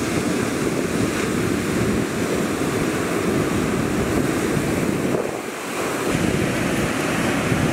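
Surf breaking and washing up a sandy beach, with wind buffeting the microphone; the rumble eases briefly about five and a half seconds in.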